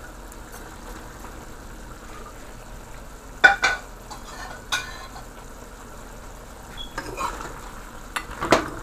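A pot of beef and potatoes cooking with a steady soft sizzle, broken by sharp metal clanks of a utensil against the pot about three and a half seconds in and again just before five seconds, with more clattering and stirring near the end.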